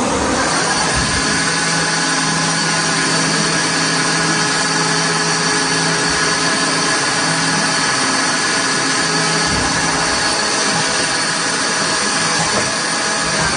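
Hardinge Cobra 42 CNC lathe running: a steady machine whine made of several constant tones, which rises up to speed in the first second.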